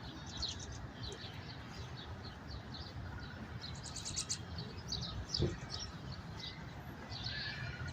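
Small birds chirping, with short high chirps throughout and a quick run of rapid notes about four seconds in, over a low steady rumble.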